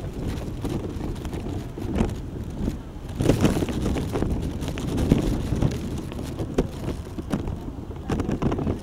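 Wind rumbling on the microphone, with a few short thumps scattered through.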